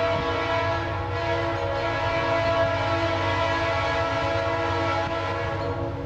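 Leslie RS-3L three-chime air horn on an approaching B40-8W diesel locomotive, sounding a long chord with a short break about a second in and stopping just before the end. The low rumble of the locomotives' diesel engines runs underneath.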